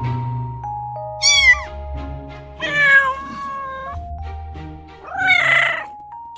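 Kitten meowing three times: a short high meow about a second in, a longer one in the middle, and a rougher, noisier one near the end. Background music with long, held notes runs underneath.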